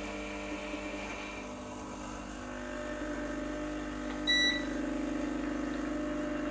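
Rancilio Silvia espresso machine's vibratory pump buzzing steadily as it pushes water through the coffee in the portafilter while a shot is pulled. A short beep sounds about four seconds in.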